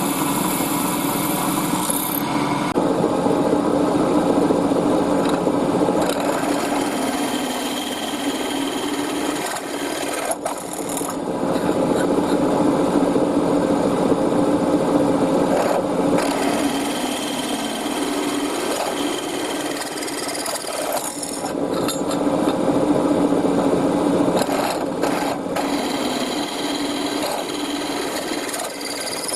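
A power tool running steadily under load on metalwork, easing off briefly about ten and twenty seconds in.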